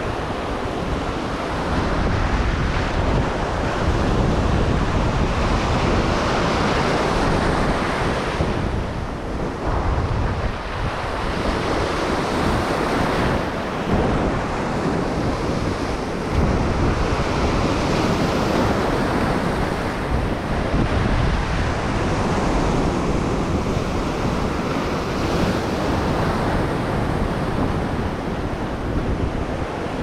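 Ocean surf washing and foaming over a shallow rocky reef, with wind buffeting the microphone.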